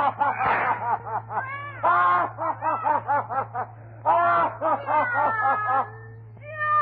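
A voice laughing wildly in quick bursts of short, rising-and-falling syllables. About five seconds in it gives way to a long, falling cat yowl. A steady low hum from the old recording runs underneath.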